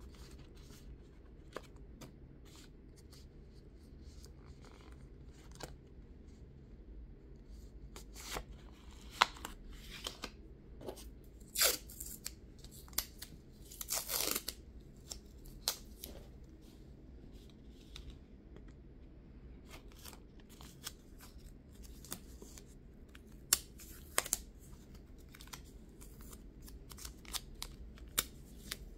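Strips of tape pulled from the roll and torn, a few short rips with the longest about halfway through, among scattered light clicks of plastic nail-tip swatches being handled and set down on a card.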